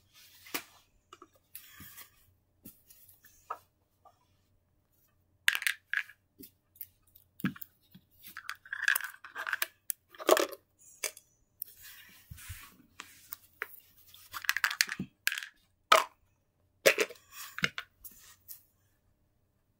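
Irregular rustling, clicks and knocks from stuffed toys and small objects being handled and moved about, coming in scattered clusters.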